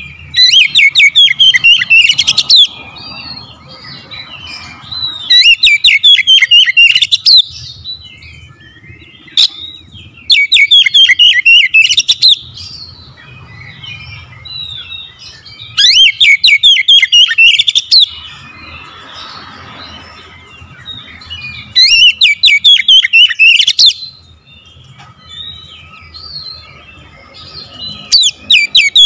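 Oriental magpie-robin (kacer) singing in full, vigorous song. Loud phrases of rapid, sweeping high notes about two seconds long come every four to six seconds, with softer chirps between them.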